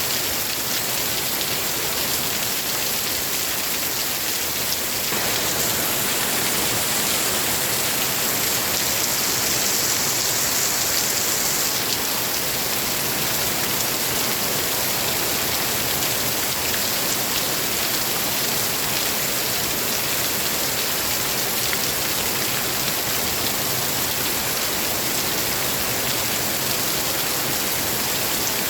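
Steady rain falling, a dense even hiss of drops that grows slightly fuller and louder about five seconds in.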